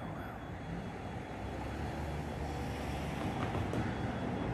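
An approaching train: a low rumble that grows steadily louder.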